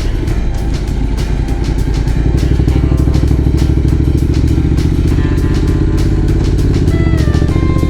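Motorcycle engine running while riding, getting louder about two and a half seconds in. Background music plays over it.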